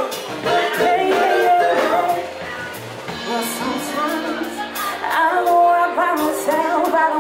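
Live R&B band playing, with a woman singing lead into a microphone over electric bass, electric guitar and drums. The music drops back briefly about two seconds in, then fills out again with held chords.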